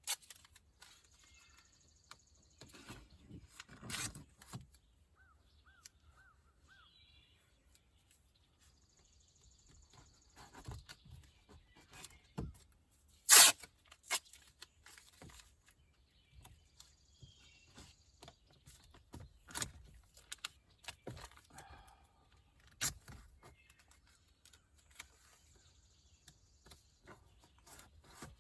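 Masking tape being pulled off the roll in short hissy stretches and pressed down, with scattered handling clicks and knocks; one sharp click about 13 seconds in is the loudest.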